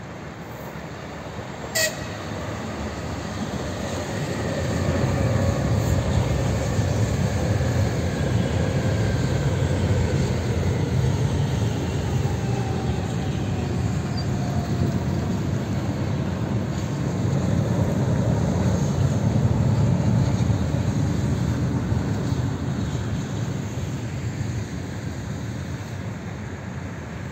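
EG2Tv 'Ivolga' electric multiple-unit trains passing on the rails. The rumble of wheels and cars builds over a few seconds, holds loud, then fades, with a faint motor whine falling in pitch as they go by. A brief sharp click sounds about two seconds in.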